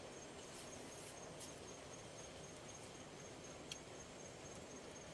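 Faint outdoor quiet with a thin, steady high-pitched insect trill running throughout, and a couple of small clicks.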